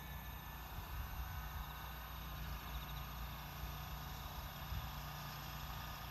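Low, irregular rumble of wind on the microphone over a quiet rural background.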